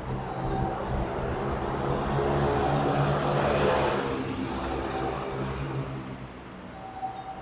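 Electric train going by on the line, its rumble and motor hum rising to a peak about halfway through and then fading.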